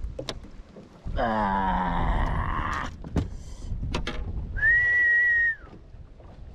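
A person whistles one steady high note for about a second. Before it, about a second in, comes a louder sound falling in pitch, with a few sharp knocks in between.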